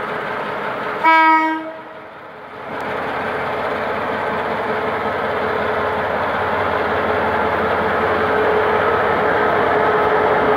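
GM G22W diesel-electric locomotive sounds one short horn blast about a second in, then its diesel engine and the train's wheels on the rails grow steadily louder as it pulls the passenger train out past the platform.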